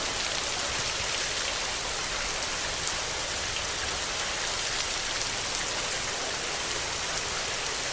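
Steady rain: an even, dense hiss of falling rain with scattered individual drop ticks.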